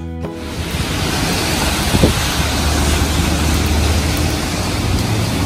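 Roadside traffic noise with wind rumbling on the microphone, and a short thump about two seconds in.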